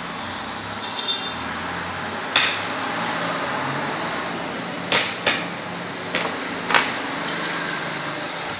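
Five sharp clacks over a steady room hiss: makruk pieces being set down and moved on the board during play.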